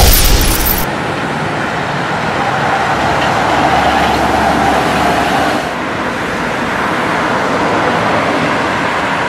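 Sentosa Express monorail train running along its elevated concrete beam: a steady rumble and hiss, louder near the middle and duller after a change about six seconds in. A short bright burst of noise opens it.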